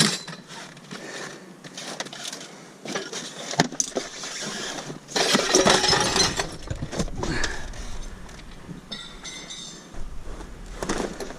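Scrap pieces being handled and broken apart: irregular clinks, rattles and a few sharp knocks, busiest around the middle.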